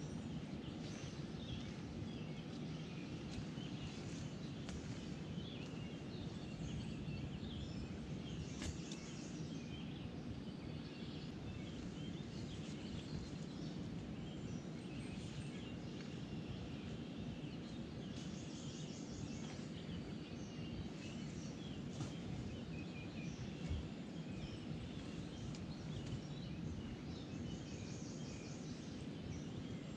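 Riverside ambience: songbirds chirping and trilling on and off over a steady low rushing noise.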